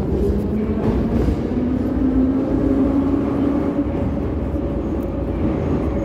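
Metro train pulling away from a station, heard from inside the car: the traction motors whine, rising in pitch over the first few seconds of acceleration, over a steady low rumble of the running gear.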